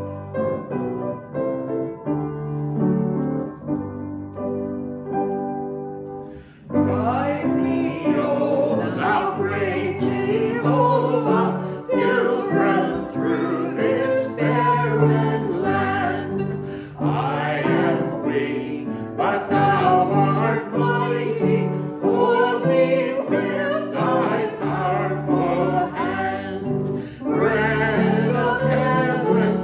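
Upright piano playing a hymn introduction alone, then a few singers come in about seven seconds in and sing the hymn with the piano accompanying.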